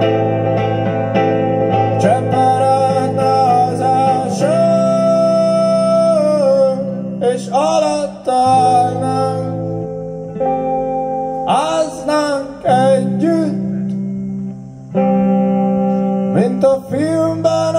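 Live electric guitar music: melodic notes that bend and glide in pitch over held low notes that change every few seconds, with short breaks in the sound.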